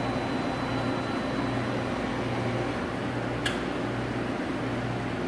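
Bullard Dynatrol 46-inch CNC vertical boring mill running under power: a steady machine hum whose low drone dips about once a second, with a faint high whine early on and a short sharp click about three and a half seconds in.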